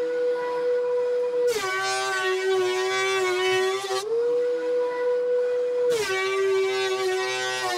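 Benchtop thickness planer running with a high, steady whine that drops in pitch and turns harsh as a glued-up pallet-wood panel feeds through the cutterhead. This happens twice, from about a second and a half in and again from about six seconds in, and the pitch climbs back to the free-running whine in between.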